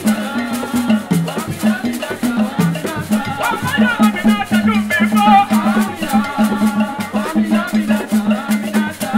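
Live Ben Skin dance music from Cameroon's West Region: hand drums beating a steady, repeating pattern, shakers rattling along, and voices singing over them.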